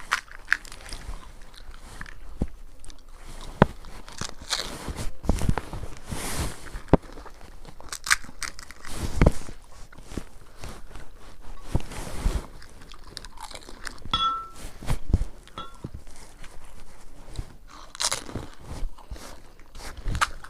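Someone eating panipuri, biting into the crisp hollow puri shells with irregular crunches and chewing between bites.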